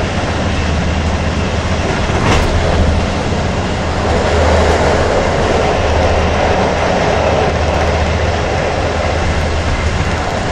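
Train running at speed, heard from inside the carriage: a steady rumble and rush of wheels on rail. A single sharp knock comes a little over two seconds in.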